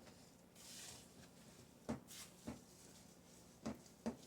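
Faint kitchen handling sounds: a brief rustle about a second in, then four short knocks of containers or utensils being set down and moved.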